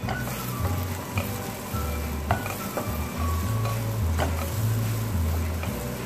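Wooden spatula stirring a thick goat brain masala in a steel pan, the frying food sizzling and the spatula knocking against the pan several times.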